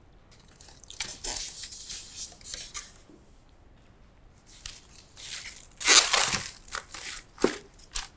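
Plastic wrapping crinkling and cardboard box flaps rustling as a monitor's shipping box is unpacked, in irregular bursts that are loudest about six seconds in.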